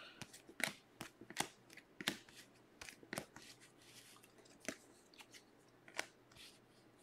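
Topps Stadium Club Chrome trading cards flipped through by hand, the stiff glossy cards flicking and sliding against each other in short, irregular soft clicks that come thicker in the first half and thin out toward the end.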